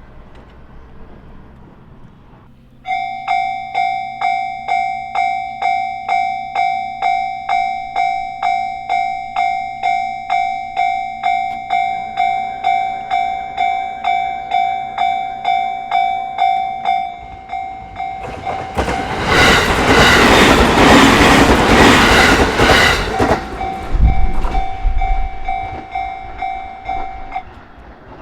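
A Japanese level crossing's electronic warning bell starts about three seconds in and rings its repeated clang about twice a second. A train then passes through the crossing, its rumble and wheel clatter loudest in the middle of the second half. The bell keeps sounding after the train and stops shortly before the end.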